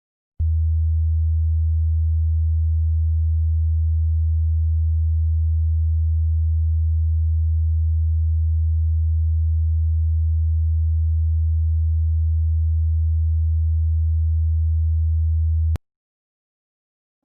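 A steady, deep sine test tone, held unchanged for about fifteen seconds and then cut off abruptly: the low-frequency effects (subwoofer) channel test of a 5.1 surround-sound check.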